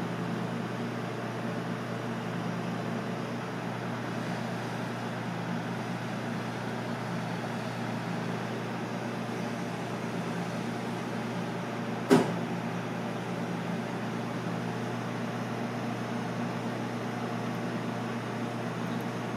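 Steady low machine hum, like room equipment such as an air conditioner or refrigerator running, with a single sharp click or knock about twelve seconds in.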